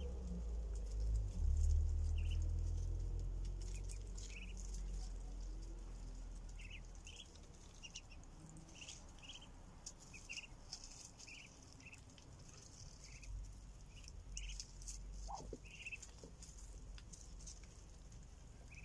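Ducklings giving short peeps, about one or two a second, with a patter of small ticks from bills pecking at grain. A low rumble fades out over the first several seconds.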